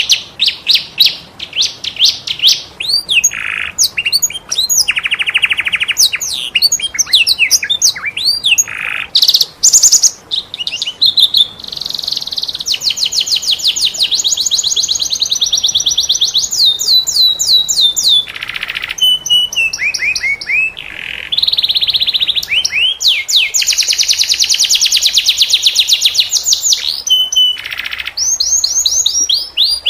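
Domestic canary singing a fast, varied song: long rolling trills of rapidly repeated notes alternate with quick chirps and rising and falling whistled phrases.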